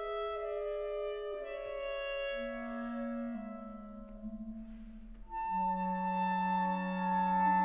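Clarinet quartet of three B-flat clarinets and a bass clarinet playing held chords that move in steps. The bass clarinet comes in low about two seconds in, the music thins and softens around the middle, and a louder full chord enters about five seconds in.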